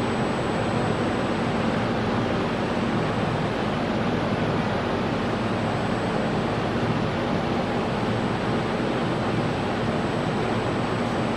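Automatic welding machine for stainless steel plate running: a steady, unbroken noise with a thin high whine over it.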